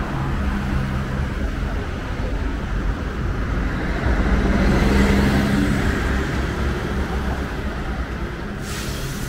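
Road traffic on a city street: cars pass close by with tyre noise and engine hum. A coach goes by about halfway through, where the sound swells to its loudest before easing off.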